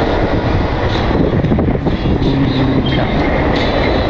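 Wind buffeting the microphone and tyre rumble from an electric bike riding at about 22 km/h, a steady loud rush with no break.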